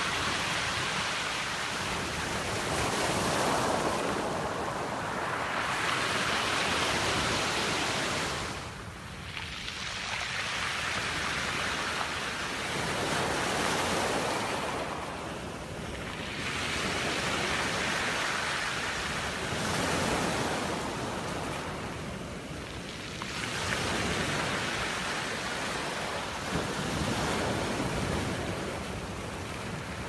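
Small waves breaking and washing up over a pebble beach: steady surf noise that swells and fades about every six to seven seconds.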